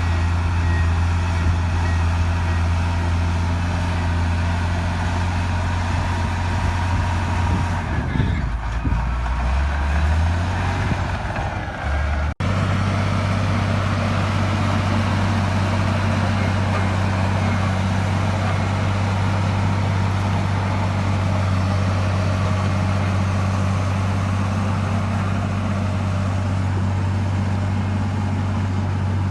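Heavy diesel engine of earthmoving equipment running steadily with a low hum. About eight seconds in the engine pitch dips and wavers for a few seconds. It cuts off for an instant near the middle, then the steady hum resumes.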